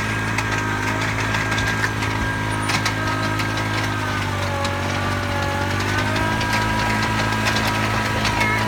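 Small tractor engine running steadily, with scattered rattles and clicks. Its pitch sags in the middle and then comes back up, as the engine takes load.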